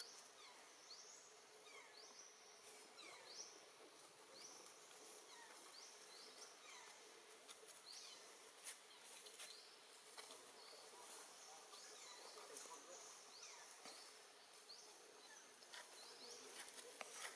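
Faint forest ambience: a steady high hiss with short chirps sliding downward, roughly one a second, and a few faint clicks.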